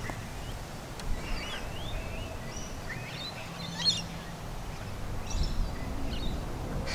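Wild birds chirping and whistling in short, scattered calls, over a low rumble of wind on the microphone.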